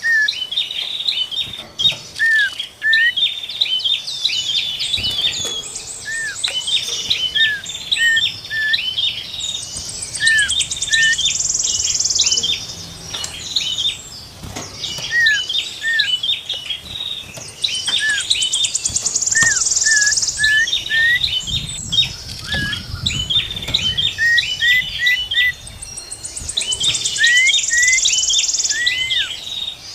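Several small songbirds singing over one another: rapid chirping notes, short arched whistles, and a buzzy rattling trill about two seconds long that comes back every eight seconds or so.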